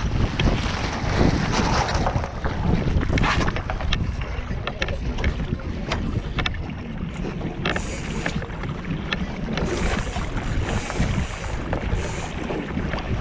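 Finn dinghy under sail: wind buffeting the microphone over water washing along the hull, with scattered sharp clicks and knocks throughout.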